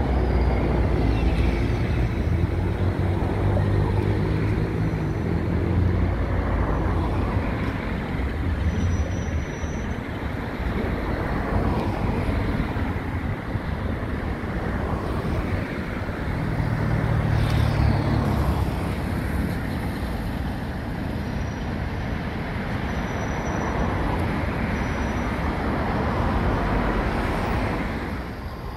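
Class 47 diesel locomotive's engine running with a low, deep drone over a steady rumble. The engine note swells about two to six seconds in and again around sixteen to eighteen seconds in.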